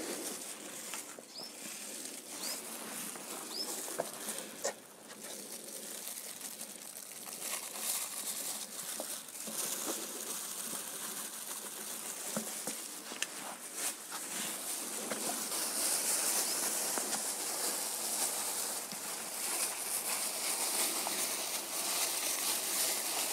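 Disposable plastic gloves rustling and crinkling as hands squeeze and work a goat's lanced abscess, with scattered faint ticks. The rustling grows louder in the last third. A few faint short chirps sound near the start.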